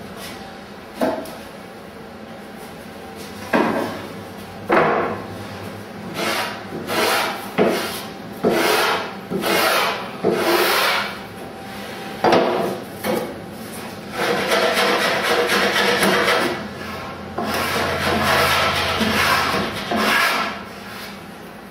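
Surform rasp worked by hand along the edge of a wooden Greenland kayak paddle blank: about a dozen short rasping strokes, then longer runs of steady rasping in the second half.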